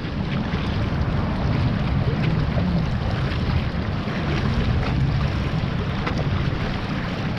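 Water rushing and splashing along the hull of a Hobie Adventure Island sailing kayak under way, with wind rumbling on the microphone.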